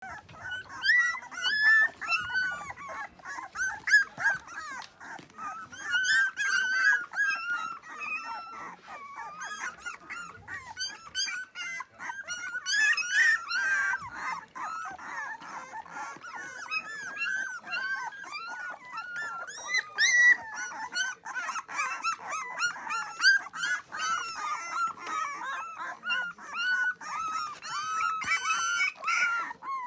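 A litter of two-and-a-half-week-old puppies whining and squealing, several pups at once, in constant overlapping high-pitched squeaks.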